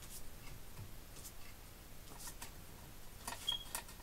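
A few faint, irregular clicks and light taps, with a brief faint squeak about three and a half seconds in.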